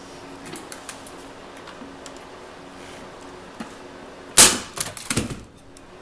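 Manual staple gun firing a staple through wire fencing into the cage's frame: one loud snap about four and a half seconds in, followed by a few quick lighter clicks, with faint clicks of the wire mesh being handled earlier.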